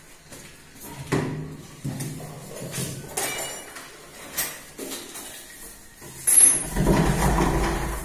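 Small metal lock parts clicking and clinking as they are handled and fitted together. Near the end, a louder continuous rattling noise starts.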